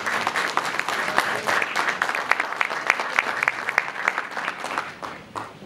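Audience applauding, the clapping thinning to a few scattered claps and dying away near the end.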